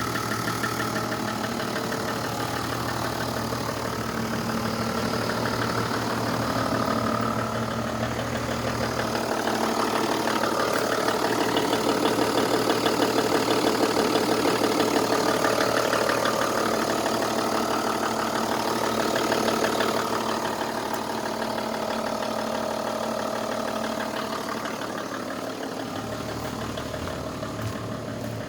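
Toyota 1HD-FTE 4.2-litre straight-six turbodiesel running with a knock whose cause is not yet known. It gets louder through the middle and settles back about two-thirds of the way in.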